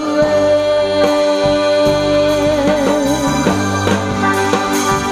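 Live band playing a slow ballad on Casio keyboard and drum kit, with one long held note that wavers near its end over the first three seconds.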